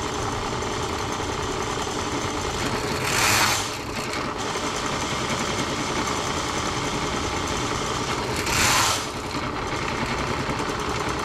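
Ridgid K-60 sectional drain-cleaning machine running steadily, its motor spinning the cable as it is fed into a clogged kitchen drain branch line. Two brief louder bursts of noise come a little after three seconds in and again near nine seconds.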